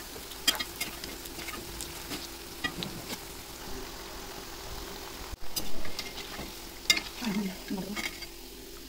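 Onion fritters deep-frying in hot oil in a small wok give a steady sizzle. A perforated steel slotted spoon clicks lightly against the pan a few times as the fritters are turned and lifted.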